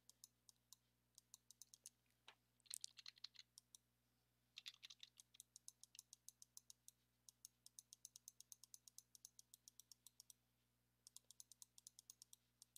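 Very faint clicking of computer input: quick runs of small clicks, several a second, with pauses between runs and a couple of slightly louder clusters about three and five seconds in.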